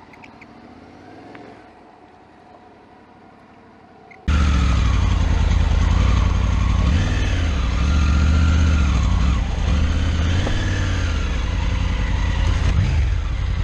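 Triumph Tiger 900's three-cylinder engine, faint and steady at first, then from about four seconds in loud and close, its revs rising and falling again and again as the bike is ridden slowly over a rough, rocky dirt track.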